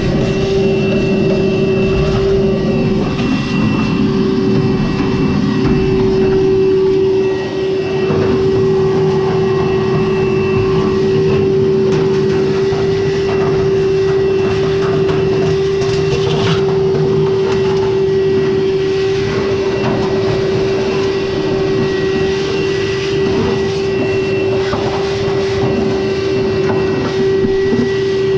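Frigidaire electric clothes dryer running: a steady motor hum over a continuous rumble from the turning drum, with a brief dip about seven seconds in.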